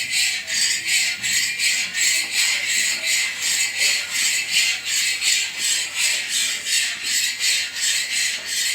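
Automatic khoa-making machine's rotating scraper rasping around the pan, a steady, rhythmic scrape at about three strokes a second.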